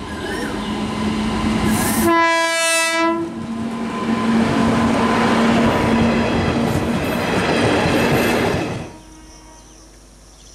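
WAP-7 electric locomotive hauling a passenger train sounds one horn blast about two seconds in as it nears the crossing. The coaches then rush past with wheels clattering over the rails, loud and steady, until the sound cuts off suddenly near the end.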